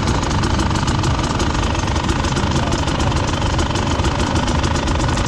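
Enduro motorcycle engine running steadily, close to the rider's onboard camera, with a rapid even beat of firing pulses.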